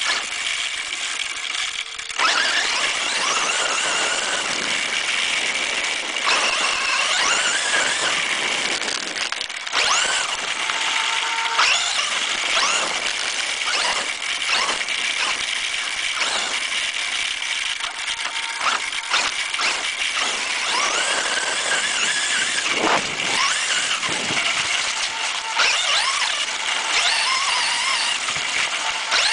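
RC car's motor and gears whining, the pitch rising and falling again and again as it speeds up and slows down, over the rough noise of its tyres on gravel and grass.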